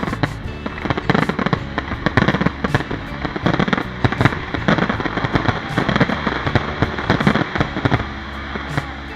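A fireworks display: many bangs and cracks in quick succession, over background music.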